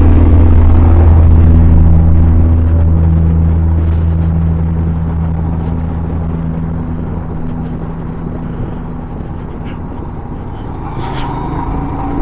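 Motorcycle engine running steadily under riding, a low even hum that gradually gets quieter over the first several seconds.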